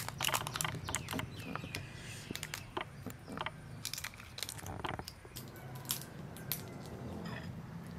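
Shell of a large cooked shrimp crackling and snapping as it is pulled apart and peeled by hand: a quick run of sharp clicks that thins out after about six and a half seconds.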